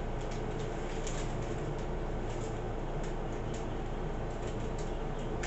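Faint small clicks and rubbing of gloved fingers working grease onto a small plastic gear, over a steady low hum.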